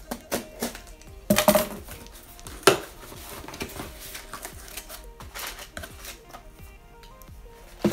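A cardboard shipping box being cut open and unpacked: scraping and rustling of cardboard and packing tape, with a few sharp knocks, the loudest about a second and a half in and just under three seconds in. Quiet background music plays underneath.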